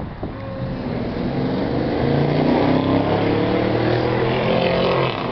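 Engine of a road vehicle passing close by, growing louder from about a second in and dropping away near the end, over general street traffic noise.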